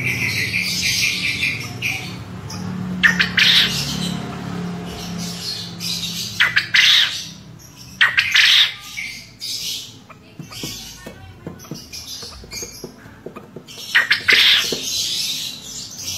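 Caged male quail calling: four short, loud calls, each a quick run of notes, about three, six and a half, eight and fourteen seconds in. This is the 'ceketer' call that contest quail are kept for.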